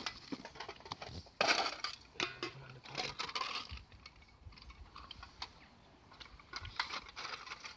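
Rummaging in a fabric fishing-tackle bag: rustling, with hard plastic tackle boxes knocking and clicking as they are lifted out and opened, and small items rattling inside them.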